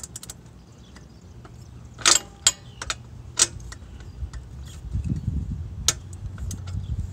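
Scattered sharp metal clicks and clinks of a hand tool working an exhaust manifold bolt on a motorcycle engine, the loudest a pair of strikes about two seconds in.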